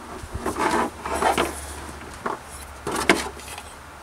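Handling noises of a power drill and its packaging: several light knocks and rubbing of hard objects being moved about, over a faint low hum.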